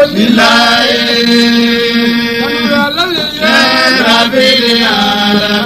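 Quran recitation chanted in long, drawn-out notes that waver and glide between pitches, with a change of phrase about three seconds in.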